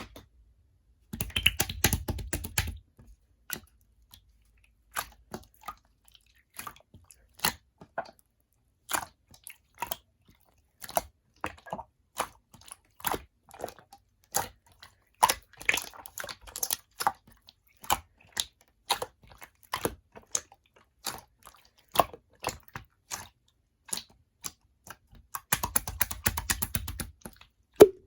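Jelly-textured slime being squished and worked by hand, giving sticky clicks and pops. There is a dense crackling run near the start and again near the end, with single clicks about once a second in between.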